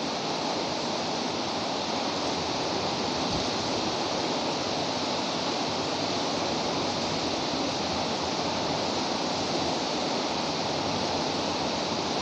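Steady, even hiss of background noise with no change in level, the same noise bed that runs under the speech.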